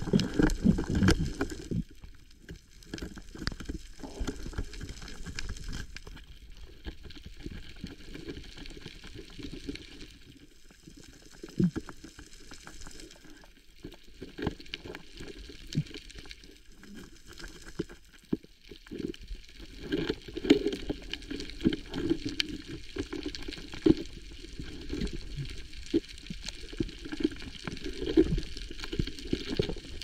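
Underwater sound picked up through an action-camera housing at a rocky seabed: water sloshing and gurgling around the housing, with many scattered sharp clicks. The water noise swells near the start and again in the last third.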